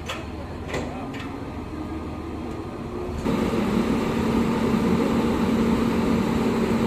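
WAP-7 electric locomotive moving slowly alongside the train, with a few metal clanks, for the engine change. About three seconds in, up close, it gives way to the locomotive's steady, louder hum and fan noise with a constant low tone.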